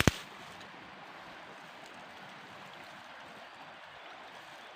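Steady rush of flowing water, with one sharp click right at the start.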